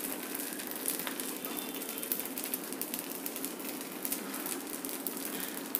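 Dosa batter sizzling steadily on a hot tawa kept on a low flame, with light scattered crackles.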